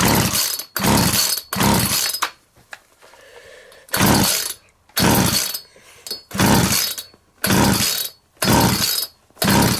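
McCulloch Mac 441 two-stroke chainsaw being pull-started over and over, about nine short strokes of the recoil starter with a pause early on, without catching and running properly.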